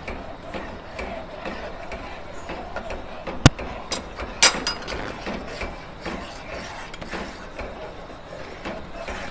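A metal spoon stirring custard in a steel pot, scraping and clinking against the metal in a steady run of small clicks, with a sharp clink about three and a half seconds in and another about a second later. The spoon is kept moving so the custard does not form lumps.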